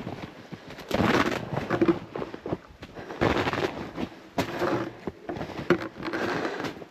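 Footsteps crunching and breaking through ice-crusted snow, one crackly crunch about every second.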